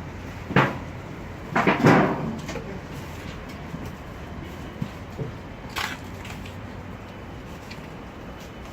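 A sharp knock, then a short clattering burst, and later another single knock, over a steady low background noise.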